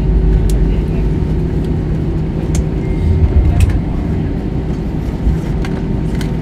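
Cabin noise inside an Airbus A321 taxiing after landing: a steady low rumble of the engines and rolling landing gear with a steady hum, and scattered light clicks and rattles.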